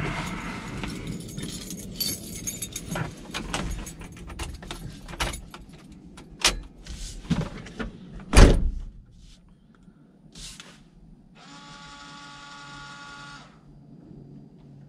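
Scattered clicks and knocks of someone climbing into a car, then a loud thump about eight seconds in as a car door shuts. Near the end a steady buzzing tone sounds for about two seconds.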